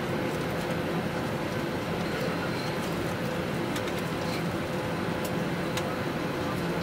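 Steady cabin noise aboard an Airbus A321 airliner on the ground: an even hum with a faint steady tone running through it.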